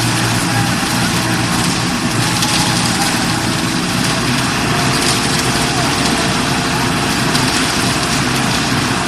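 Self-loading concrete mixer truck's engine running steadily under a dense mechanical noise.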